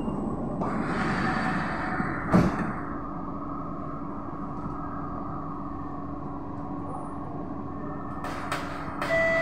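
Sliding passenger doors of a Kawasaki-Sifang C151B metro train closing: a rush of noise for about two seconds that ends in a loud thud as they shut. Then the standing train's steady hum with a low tone, a few clicks near the end, and a chime starting right at the end.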